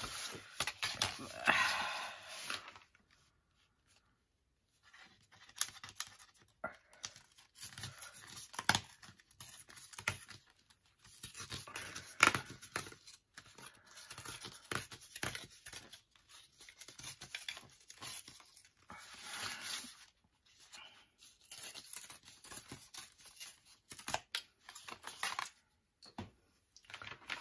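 Heavy tea-stained mixed-media paper being torn along a tear ruler, in a run of short, irregular rips with brief pauses between them.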